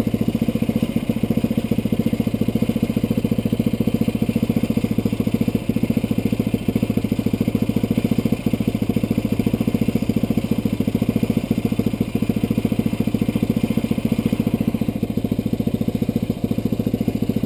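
Yamaha Rhino side-by-side's single-cylinder engine idling steadily, with an even rapid beat.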